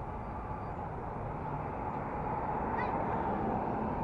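Steady road and wind noise from riding along a street, a continuous rumble with a brief high chirp about three seconds in.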